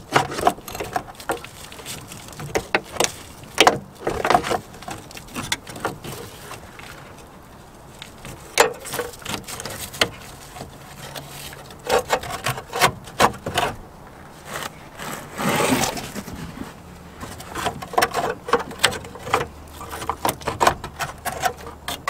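A cut, rusty steel transmission cooler line being worked free from under a truck, clicking, knocking and scraping against the frame and nearby parts in irregular bunches, with one longer scrape about two-thirds of the way through.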